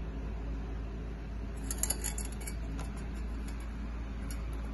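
Plastic cat toy ball with a bell inside, jingling and rattling on a tile floor as a kitten bats it. A quick cluster of jingles comes about two seconds in, followed by a few scattered ticks, over a steady low hum.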